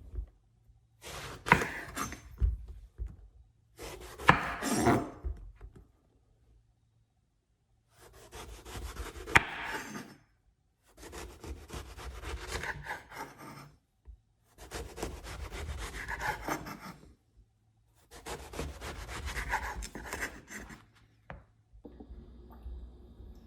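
A knife sawing through eggplant on a wooden cutting board, in six separate cuts of about two to three seconds each.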